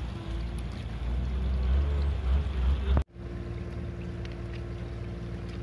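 Heavy machinery engine running steadily under a heavy low rumble. The sound cuts off abruptly about three seconds in, then a steadier engine hum with a constant tone carries on.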